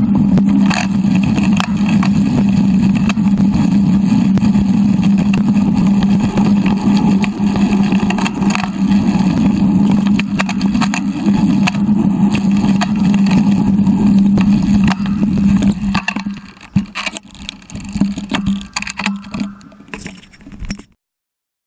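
Bicycle ride noise on a GoPro's microphone, sped up threefold: a dense rumble of tyres on a dirt and gravel track and wind, with a steady low hum. About 16 s in it drops to scattered knocks and rustling, then cuts off abruptly near the end.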